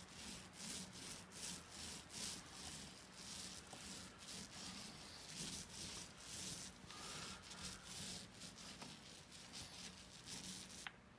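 Paint being brushed or rolled onto a patched drywall wall: rhythmic back-and-forth scraping strokes, about two or three a second, that stop shortly before the end.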